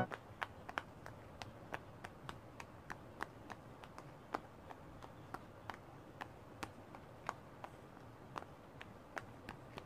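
Bubbles of a large butterfly-shaped silicone pop-it fidget toy being pressed in one by one by a finger: faint, sharp pops at an even pace of about three a second.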